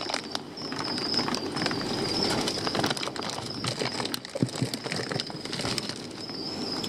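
Plastic shipping bags crinkling and rustling as hands sort through a box of bagged corals, with a steady high-pitched whine underneath.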